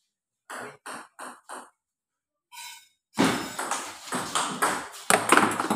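Table tennis ball being struck and bouncing on the table: four quick sharp clicks in the first couple of seconds of a rally, and a short ping about halfway. The second half is filled by louder, denser noise.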